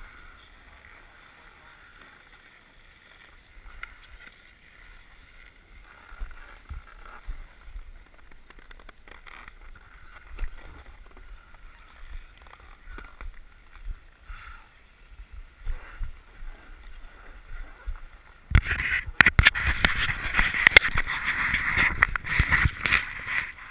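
Snowboard sliding over packed snow, a quiet scrape with faint low knocks, muffled as if through a camera housing. About eighteen seconds in, a sudden loud rush of scraping and crackling noise takes over.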